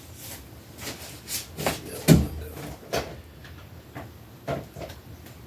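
Hard 3D-printed plastic pieces being handled and set down: a series of light clicks and knocks, with one louder thump about two seconds in.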